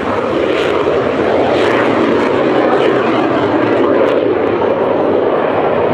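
Hawker Hunter jet flying low and fast past and climbing away, its jet engine loud and steady throughout.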